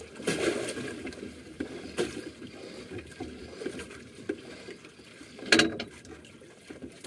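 Sea water lapping against the wooden hull of an outrigger boat, with scattered knocks and one louder sharp noise about five and a half seconds in.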